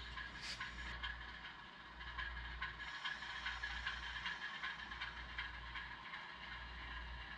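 HO scale model train being shoved slowly along the track, the small freight cars' wheels clicking and rattling over the rail joints, with a low hum underneath.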